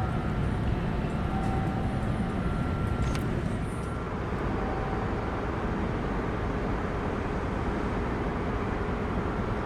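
Steady low outdoor background rumble, with a few faint short tones over it and a light click about three seconds in.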